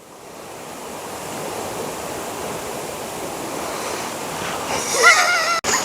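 Rushing river water, a steady noise that swells over the first two seconds and then holds. Near the end comes a brief wavering high-pitched call, then a sudden break in the sound.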